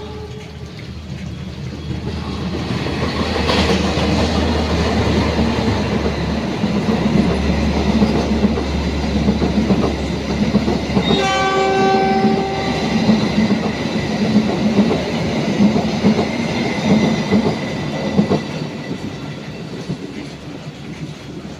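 Train passing close by: locomotive rumble and wheels clattering on the rails, growing louder and then fading, with a short blast of a multi-note horn about eleven seconds in.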